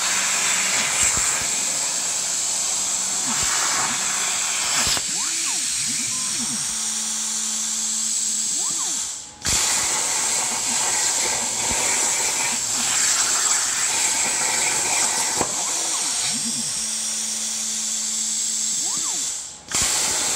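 CNC plasma cutter cutting steel plate: the arc gives a loud, steady hiss, and the gantry motors whine up and down in pitch as the torch moves. The arc cuts out briefly about nine seconds in and again near the end, then restarts for the next cut.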